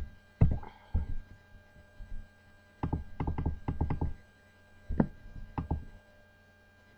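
A steady electrical hum with a scatter of short knocks and clicks, some in quick runs of three or four and others single, at irregular times.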